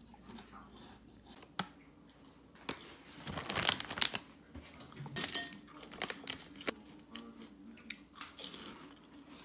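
Foil-lined plastic snack bag crinkling as a hand handles and opens it, loudest in a burst of rustling about three to four seconds in, with a few sharp clicks scattered around it.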